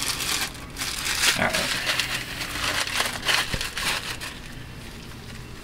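Clear plastic bag crinkling and rustling as it is handled, with dense crackles that thin out after about four seconds.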